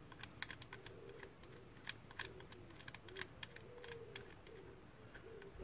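Sparse, light clicks and small ticks of a hand working a refitted camshaft position sensor and its small retaining bolt on the engine block. Quiet overall.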